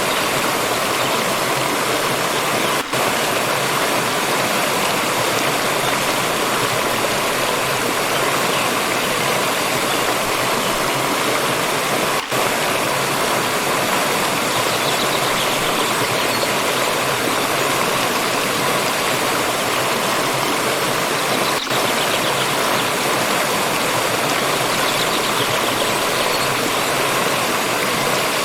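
Water stream flowing and splashing in a steady, dense rush, with three very brief dips in the sound.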